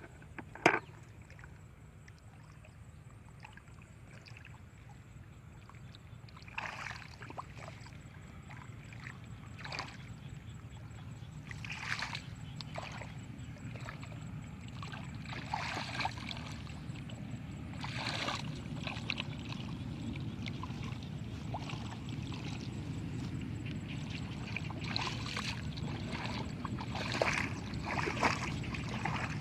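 A low, steady boat motor rumble that grows louder, with short splashes of water every few seconds and one sharp click about a second in.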